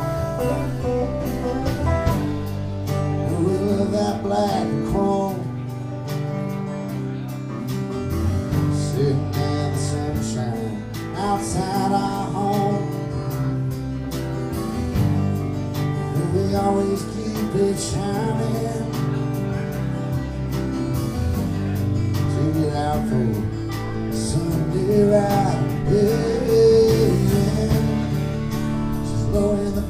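Live band playing a song on electric bass, electric guitar, acoustic guitar and drums, with a voice singing at times over the guitars.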